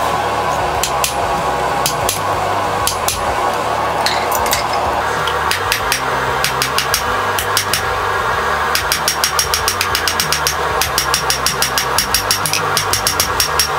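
Hand hammer striking a red-hot rebar blade on the anvil: a few scattered blows at first, then from about two-thirds of the way in a fast, even run of about five ringing blows a second, over background music.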